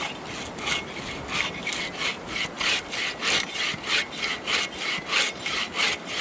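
Folding bow saw (Agawa Boreal21) cutting through a fallen tree trunk, in steady back-and-forth strokes of about three a second that grow stronger after the first second.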